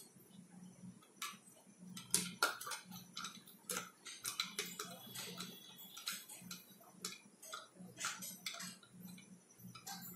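Small plastic spoon stirring salt into water in a drinking glass, clicking and tapping irregularly against the glass as the salt is dissolved, over a faint low steady hum.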